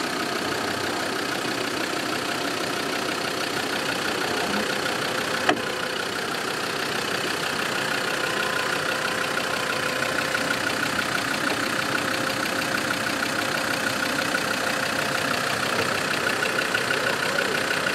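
Land Rover Defender Td5's five-cylinder turbodiesel running steadily at low revs as the vehicle crawls down a rutted dirt track, growing a little louder as it nears. A single sharp click about five and a half seconds in.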